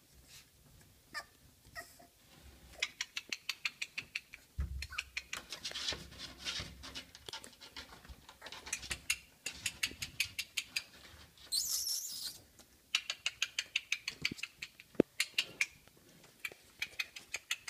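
Month-old Miniature Bull Terrier puppies scrabbling about a whelping box: quick runs of clicking and scratching, several clicks a second, from their claws on the floor and walls. A dull thump comes about five seconds in and a short scratchy rustle about twelve seconds in.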